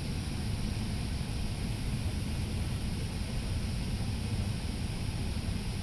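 Steady low rumble inside the cabin of an Airbus A380 standing at the holding point, its four GP7200 engines at idle.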